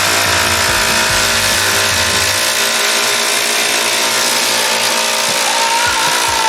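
Cordless brushless impact drivers hammering under load, running steadily.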